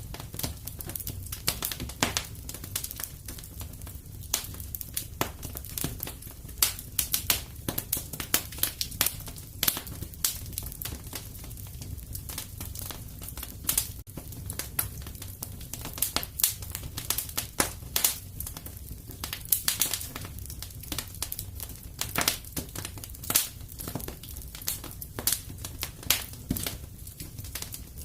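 Wood fire crackling in a fireplace: many irregular sharp snaps and pops over a steady low rumble of the flames.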